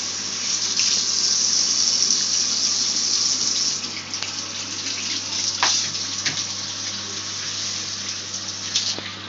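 Bathroom sink tap running, its stream splashing over a doll and hands held under it and into the basin. The flow sounds full for the first four seconds, then more uneven, with a few sharper splashes.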